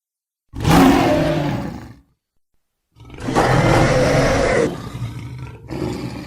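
Dinosaur roar sound effects for a Daspletosaurus: a roar of about a second and a half, dead silence, then a longer roar, and a short burst near the end.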